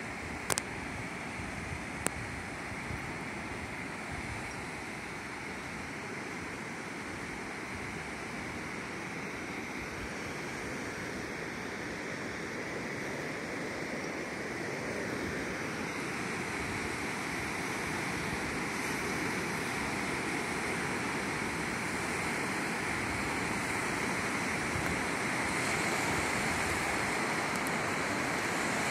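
Lake Ontario waves breaking and washing up a sandy beach: a steady rush of surf that grows slowly louder. Two brief sharp clicks come in the first two seconds.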